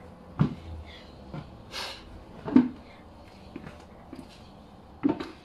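A few short, sharp flaps and rustles of laundry being shaken out by hand, the loudest about halfway through.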